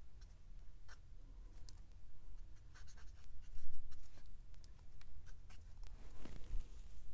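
Copic alcohol marker's brush nib dabbing on paper in short, choppy strokes: an irregular run of soft scratchy ticks, thickest about three seconds in, over a low steady hum.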